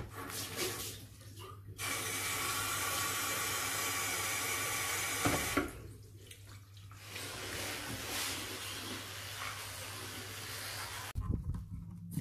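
Tap water running into a bathroom sink. It comes on about two seconds in, stops about halfway through, then runs again more softly. A low steady hum sits underneath, and there are a few knocks near the end.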